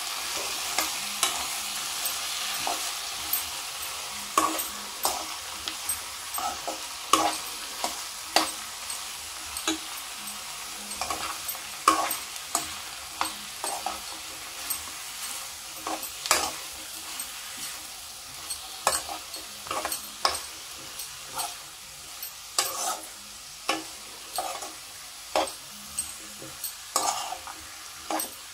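Chopped zucchini pieces being stirred and tossed with a spatula in a hot kadai with tomato paste: a steady frying sizzle, slowly weakening, with a short scrape or clack of the spatula against the pan about once or twice a second.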